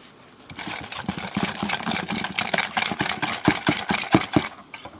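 Wire balloon whisk beating a lumpy flour-and-egg batter in a stainless steel bowl, its tines clicking and scraping rapidly against the metal sides as the lumps are worked out. It starts about half a second in and pauses briefly near the end.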